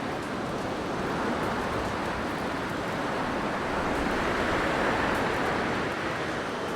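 Blizzard wind blowing, a steady rushing noise that swells a little toward the middle and eases again near the end.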